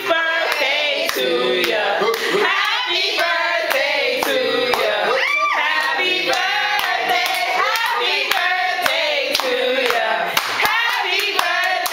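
A group of people singing together while clapping their hands in time.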